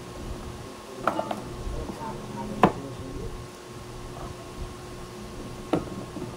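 Knife cutting raw potatoes on a cutting board: three sharp knocks of the blade striking the board, about a second in, the loudest about two and a half seconds in, and near the end, over a steady hum.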